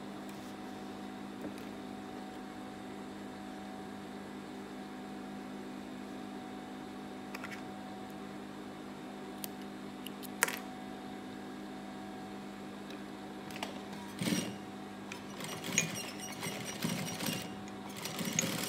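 Industrial sewing machine's motor humming steadily while the machine sits idle, with a single sharp snip of thread scissors about ten seconds in. Near the end, irregular rustling and knocking as the denim is handled under the presser foot.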